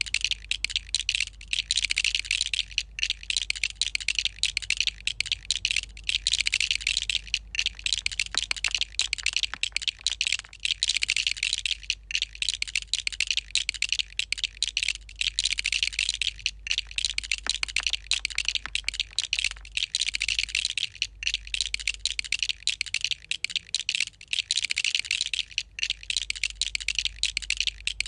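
LEGO bricks clicking and rattling in a fast, dense, unbroken stream of small plastic clicks during a speed build, with many brief pauses.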